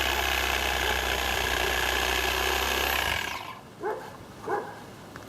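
Handheld electric power saw running steadily as it cuts into a tree, then released about three seconds in, its motor whine falling away as it winds down.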